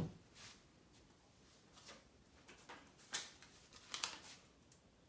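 Faint rustles and light taps of paper cards and a glue stick being handled and pressed onto a paper wall chart, with a soft thump at the start.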